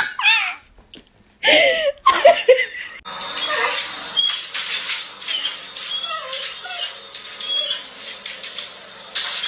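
Pet animal calls: a few short pitched cries with bending pitch in the first two and a half seconds, then from about three seconds in a busy run of high squeaks and chirps with scattered clicks.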